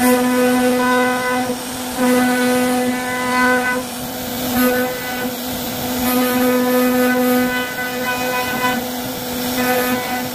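CNC router spindle running steadily while it carves wood, with a pitched whine over a hiss. Its upper tones swell and fade every second or two.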